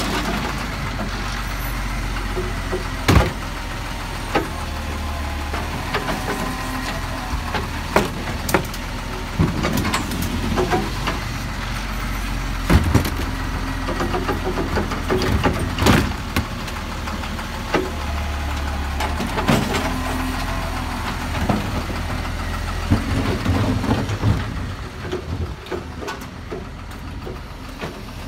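Side-loading garbage truck's diesel engine running while its hydraulic lifting arm works, with repeated sharp clunks of wheelie bins being knocked and set back down. Near the end the engine sound eases as the truck moves off.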